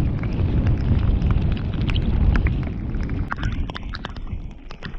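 Wind buffeting the microphone of a mountain bike's GoPro as the bike moves, a heavy low rumble with many sharp ticks and rattles over it; the rumble eases after about three seconds.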